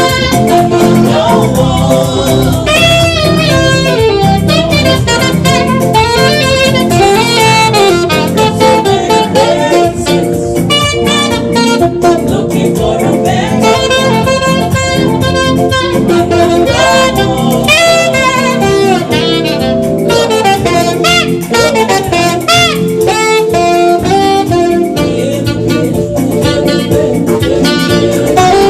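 Live saxophone playing a melodic solo over a band with guitar and drums, in an upbeat gospel-jazz style.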